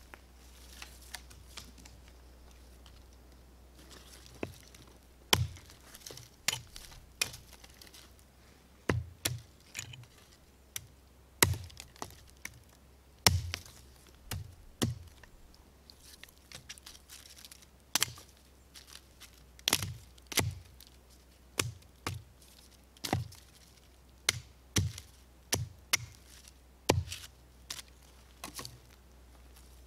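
Hatchet chopping a wooden stick on a stump chopping block: a string of sharp chops, irregular and roughly one a second, starting about four seconds in.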